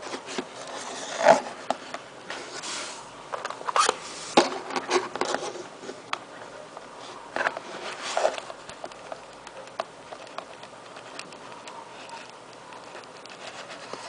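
Product packaging being handled and opened by hand: irregular taps, clicks and short scrapes and rustles, the loudest about a second in and more in clusters around the middle.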